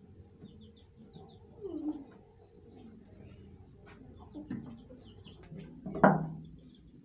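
Baby chicks peeping faintly and repeatedly, with one loud thud about six seconds in as a brick is set down on the concrete floor.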